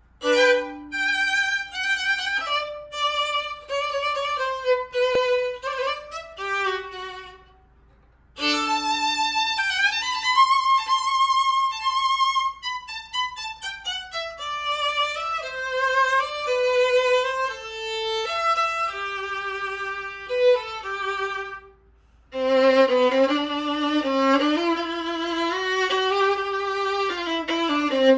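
Solo French 7/8-size J.B. Vuillaume-model violin, bowed in three phrases with vibrato and short pauses between them about 8 and 22 seconds in. The last phrase sits in the low register.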